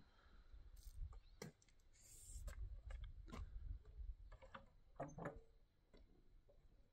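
Near silence with faint, scattered clicks and knocks over a low rumble.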